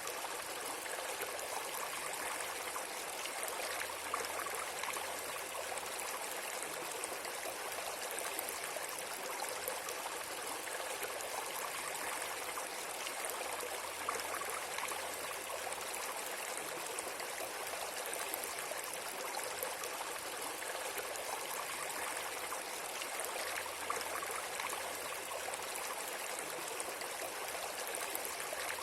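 Steady rushing noise of running water, like a stream, holding an even level throughout, with a faint low hum that comes and goes about every ten seconds.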